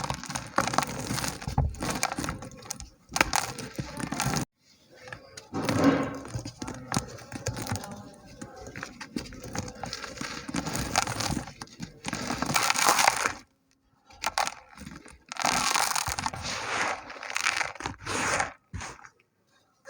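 Dry, gritty chunks of red dirt being crumbled and crushed: a dense crackling, crunching texture in bursts that stops abruptly twice.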